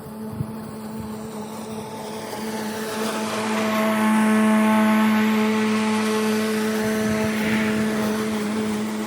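Cub Cadet electric zero-turn mower running with its blade motors on, a steady electric hum with higher whining tones. It passes close by, growing louder toward the middle and fading toward the end.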